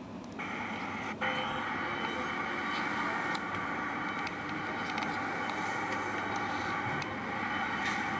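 Machinery running with a steady whirring noise and faint scattered clicks. The noise steps up about half a second in.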